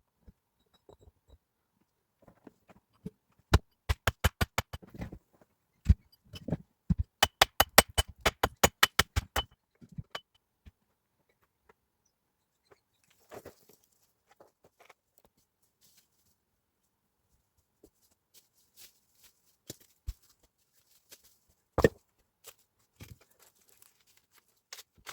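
Two quick runs of sharp, evenly spaced knocks, several a second, a few seconds apart, with scattered single knocks later.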